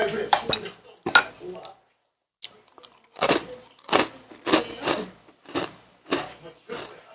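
Close-up chewing and crunching of food. There are a few bites at the start, then a steady run of chewing about twice a second from about three seconds in.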